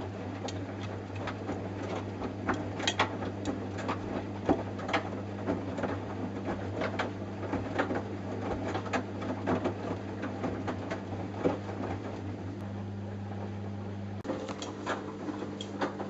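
Samsung Eco Bubble front-loading washing machine in its wash cycle: a steady low motor hum with irregular soft knocks as wet clothes and water tumble in the drum. The hum drops away about fourteen seconds in.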